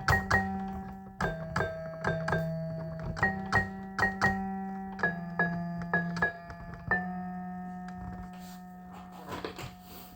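Instrumental music: struck, chiming keyboard notes in a quick even pattern over a held low bass note. About seven seconds in they settle into one sustained chord that slowly fades, with a few faint soft noises near the end.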